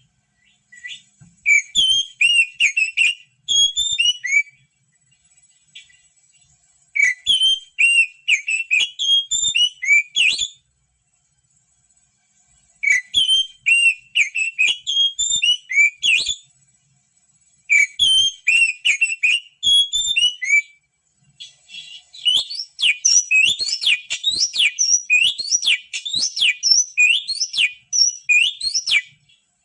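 Oriental magpie-robin (kacer) song: loud whistled phrases in bouts of a few seconds with short pauses between, then a longer unbroken run of quick rising notes near the end.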